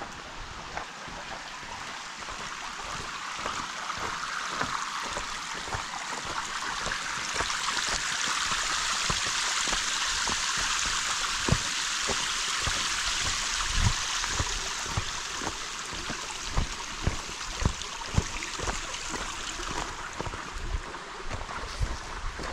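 A stream of running water rushes, swelling to its loudest midway and easing off toward the end, with footsteps thudding throughout.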